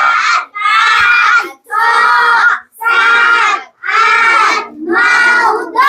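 A crowd of children counting aloud in unison, chanting one number about every second with a short pause between each.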